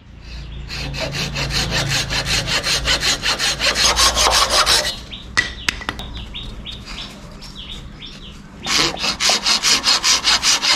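Hand saw cutting through a green bamboo tube in quick, even back-and-forth strokes. The strokes pause for about three seconds in the middle, leaving only a few small clicks, then start again near the end.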